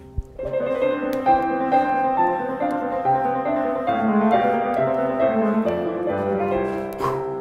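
Classical piano music, a quick flow of notes that comes in strongly about half a second in, just after a single short knock.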